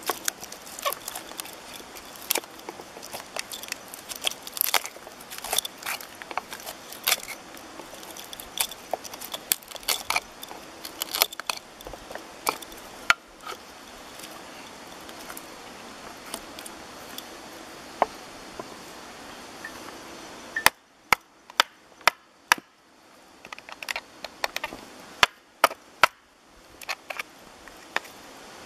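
Hand carving gouge cutting into the wooden bowl of a kuksa cup: a run of short, crisp, irregular cuts and chip snaps, then a quieter pause. Later comes a string of about ten sharp, separate knocks.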